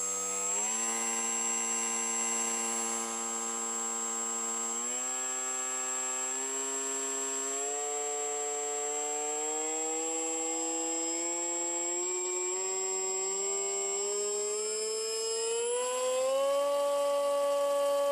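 Horizon Hobby AeroScout S2's brushless electric motor and propeller spinning up under throttle, its pitch rising in several steps, then climbing steadily, with a last jump near the end, over a steady high whine. The propeller is running unbalanced, with its balancing tape removed, and its vibration grows as the speed rises.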